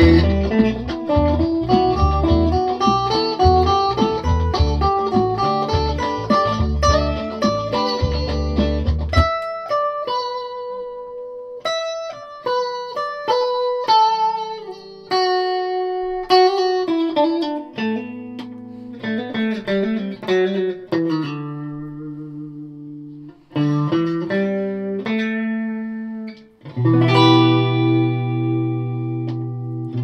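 Japanese electric guitar with a wrap-over bridge played through an amplifier. Busy rhythmic chords with pulsing low notes for about the first nine seconds, then slower single notes and short melodic runs that ring on, and full sustained chords near the end.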